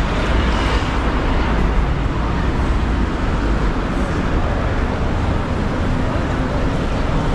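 Busy city street ambience: a steady wash of road traffic from passing cars and taxis, with no single sound standing out.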